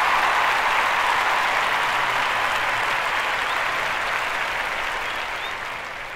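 Applause from many hands, a dense steady clatter that fades out gradually toward the end.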